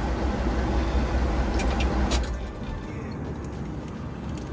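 Low rumble of a moving vehicle's engine and road noise, with a few sharp clicks just before two seconds in; the rumble drops away abruptly about two and a half seconds in, leaving a quieter hiss.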